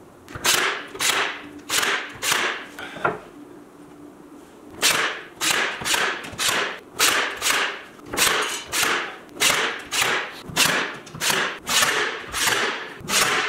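Ryobi 18-gauge brad nailer firing nail after nail into plywood drawer fronts, a quick steady run of sharp shots about two a second, with a pause of about two seconds after the first five.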